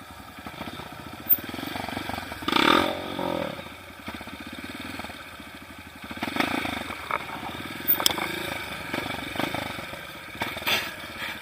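Trail motorcycle engine running, revved up about two and a half seconds in and again around six seconds in.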